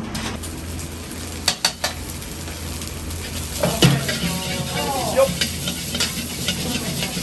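Ramen-shop kitchen cooking: a steady sizzling hiss, with sharp clinks of metal utensils about one and a half seconds in and again later. A brief wavering, falling tone comes about four seconds in.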